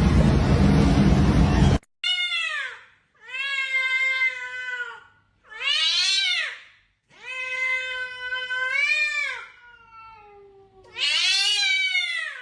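A cat meowing: about five long, drawn-out meows, each rising and then falling in pitch, with short pauses between them. The meows follow a loud rushing noise that cuts off suddenly about two seconds in.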